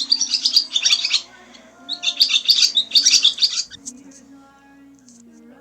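Swallow twittering in two quick bursts of rapid, high chirps, about a second apart.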